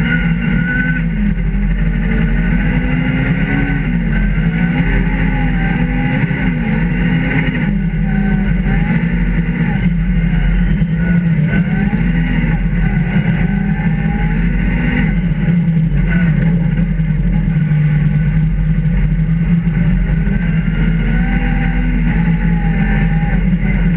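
Rally car engine heard from inside the cabin, revving up and dropping back again and again as the car accelerates through the gears, over a steady rumble of road and tyre noise.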